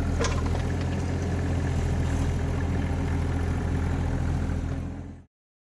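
Compact diesel machine engine running steadily at idle, with a brief sharp clank about a quarter second in. The sound cuts off abruptly about five seconds in.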